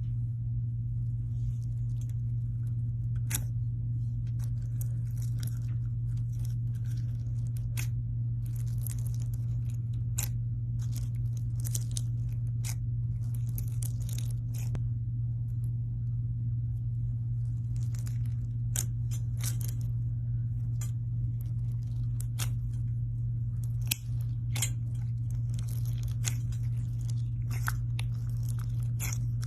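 Slime being handled, giving irregular sharp clicks and crackling pops, with many in quick clusters. A steady low hum runs underneath and is louder than the pops.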